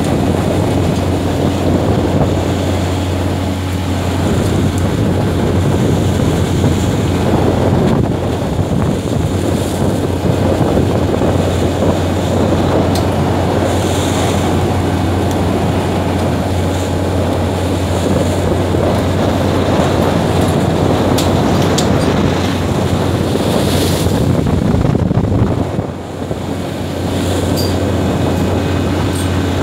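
Steady low drone of a tuna longline fishing vessel's engine, under a loud rush of wind and churning sea water along the hull, with a few light knocks from work on deck.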